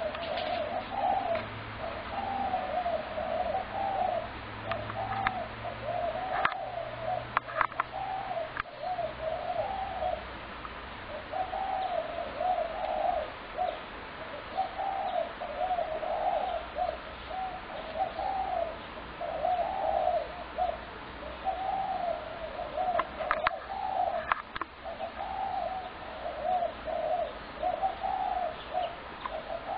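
Spotted doves cooing almost without pause, one short arched coo after another with hardly a gap. A few brief sharp sounds break in twice.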